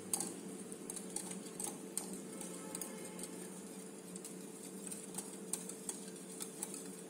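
Wire whisk beating eggs, oil and powdered sugar by hand in a glass bowl, its wires clicking lightly and irregularly against the glass a few times a second.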